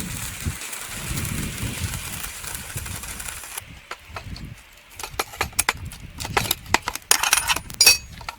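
A steady hiss for the first few seconds stops abruptly. It gives way to a run of sharp metallic clinks and knocks as steel pieces are handled, the last few ringing briefly.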